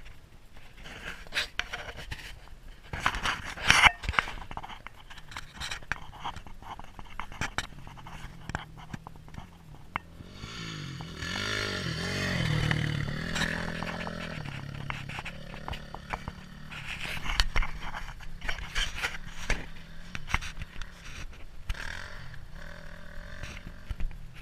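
Honda dirt bike riding past on a dirt track: its engine rises and falls in pitch, grows loud near the middle as the bike goes by, then fades. Before and after the pass there are irregular knocks and rustles close to the microphone, the sharpest a knock about four seconds in.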